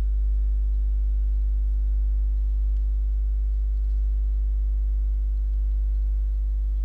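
Steady low electrical mains hum, with fainter steady higher tones above it.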